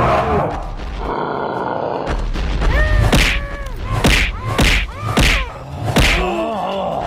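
Cartoon fight sound effects: a quick series of hits and thuds from about three seconds in, with short rising-and-falling character grunts and cries between them, over background music.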